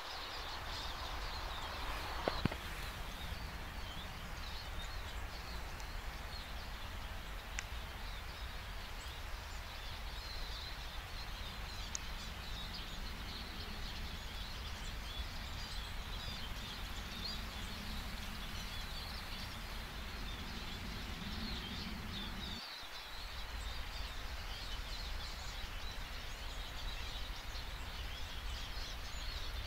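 Woodland ambience: a steady low rumble under many faint, high bird chirps, with a single sharp click about two seconds in.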